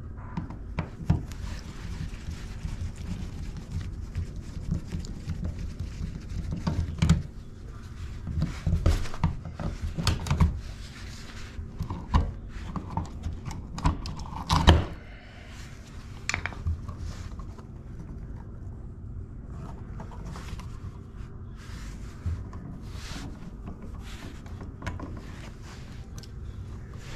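Screwdriver and gloved hands working a wall receptacle loose and pulling it out of its box: scraping, clicks and knocks on the outlet and wall. A louder knock comes about halfway through, then it goes quieter, with only occasional ticks.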